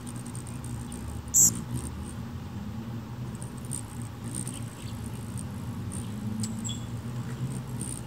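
Hummingbirds giving sharp, very high-pitched squeaky chips: one loud one about a second and a half in, then fainter ones scattered through. A steady low hum runs beneath them.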